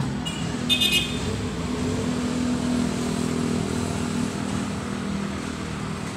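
Steady low motor hum with a slightly wavering pitch, and a brief high-pitched squeal just under a second in.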